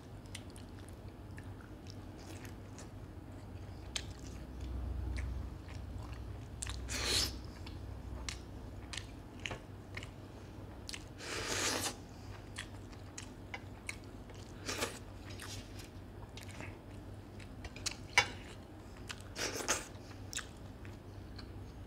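Close-up chewing and mouth sounds of a man eating chicken curry by hand: wet chewing and lip smacks, broken by a few louder noisy bursts of about half a second to a second, with one sharp click about three quarters of the way through. A faint steady low hum sits underneath.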